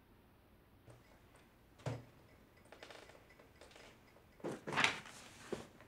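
A single dull thump about two seconds in, then a run of rustling and clattering handling noises, loudest a little before five seconds.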